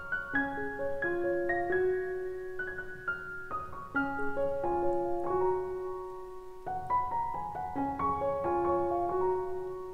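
Background piano music: a melody of notes changing about two or three times a second over held lower notes.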